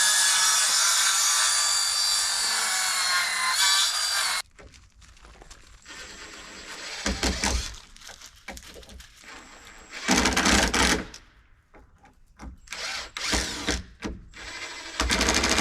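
A power tool runs steadily at full speed for about four seconds with a whining pitch that dips just before it stops suddenly. Several shorter loud bursts of tool noise follow later.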